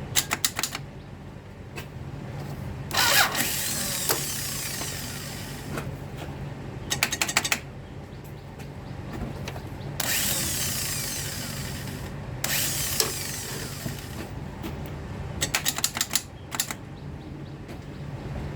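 2002 Toyota Solara's engine running at a steady idle, with three short bursts of rapid clicking and some swells of rustling noise over it.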